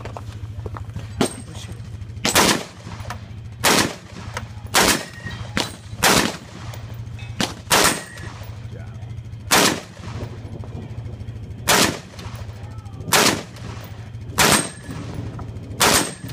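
Long gun fired shot after shot at a steady pace: about ten loud gunshots one to two seconds apart, with a few fainter shots between them, over a steady low hum.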